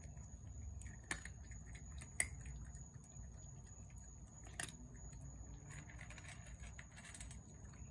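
Faint crunching of a cat eating dry kibble from a plate, with a few sharp clicks over a low steady hum.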